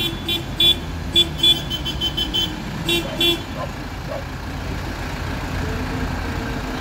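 Tractor horn tooting in a quick run of short beeps for the first three and a half seconds, over the low rumble of tractor diesel engines rolling past at walking pace; after the beeps only the engines are left.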